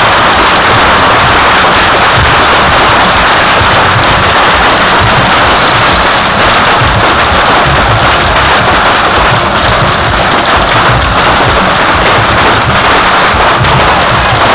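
Dense, unbroken barrage of bottle rockets and firecrackers from a Yanshui beehive rocket battery: a loud, continuous crackling hiss with no gaps, close to overloading the recording.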